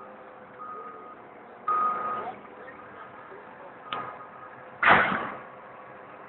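Heavy mining machinery running, with a backup alarm beeping about once a second for the first four seconds. Two loud crunching impacts about two and five seconds in, the second the louder, as the CAT 994F wheel loader's bucket drives into the rock pile.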